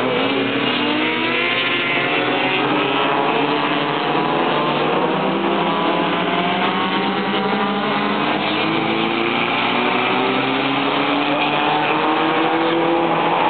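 A pack of BMW race cars, E30 M3s among them, accelerating through and out of a corner. Many engines overlap, with several tones rising in pitch at once as they pull away.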